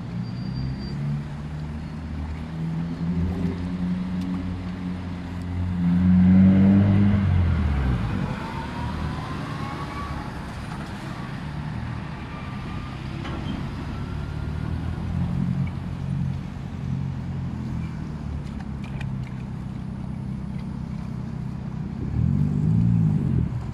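Street traffic: a lorry's engine running and pulling away, loudest about six seconds in, with its pitch rising as it gathers speed. Cars keep passing after it, and another vehicle goes by near the end.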